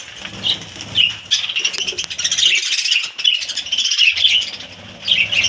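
A colony of budgerigars chattering, many high chirps and warbles overlapping, sparse at first and thickening into a continuous twitter a little over a second in.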